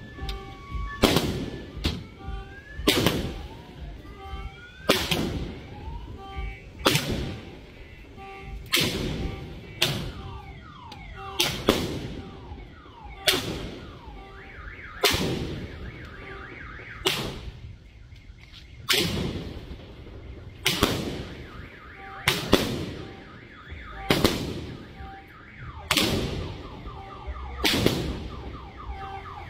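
Aerial firework shots going off one after another, a sharp bang with a short echoing tail about every two seconds. A faint repeating beeping tone sounds in the background.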